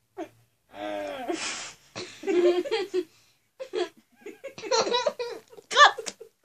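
Girls laughing in several bursts while trying to chug fizzy lemonade straight from the bottle, with a short breathy rush about a second and a half in.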